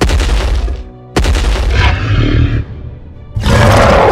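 Two heavy booming stomp sound effects about a second apart, each dying away, for a giant monster's footsteps; near the end a loud, sustained monster roar sound effect begins, over background music.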